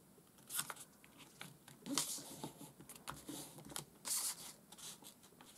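Origami paper being folded and handled: a few short, faint paper rustles and creasing sounds, about half a second in, around two seconds and around four seconds.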